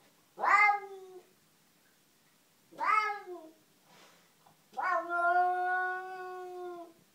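Domestic cat yowling three times, a territorial caterwaul aimed at another cat outside. The first two yowls fall in pitch and last about a second each; the third, about two seconds long, is held steady before dropping at the end.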